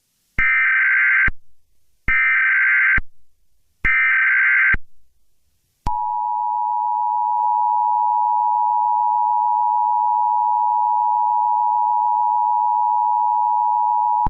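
Emergency Alert System SAME header: three short bursts of data tones, each about a second long. About six seconds in, the EAS attention signal begins, a steady two-tone beep held for about eight seconds, announcing that an emergency alert message follows.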